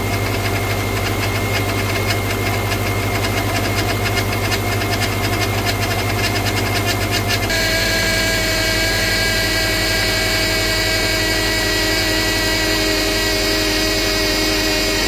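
2009 Subaru Outback engine idling with a noisy power steering pump, a fast rattling buzz in the first half that changes abruptly about halfway to a steadier whine. The pump noise is a sign of a failing pump that may have run dry from the leaking rack, or of air still in the freshly filled system.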